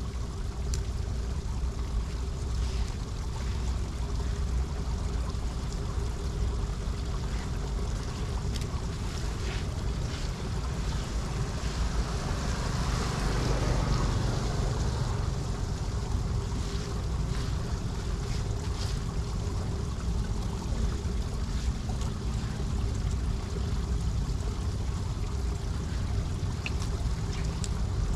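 Steady rushing of wind on the microphone and water, swelling louder for a few seconds about halfway through, with faint scattered ticks.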